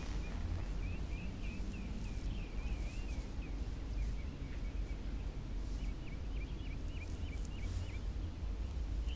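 Small birds chirping in quick runs of short high notes over a steady low rumble of ambience.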